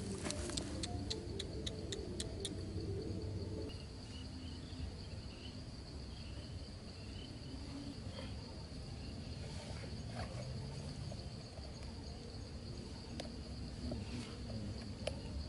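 Steady high-pitched drone of insects, with a quick run of about eight sharp clicks in the first two and a half seconds and a few faint knocks later.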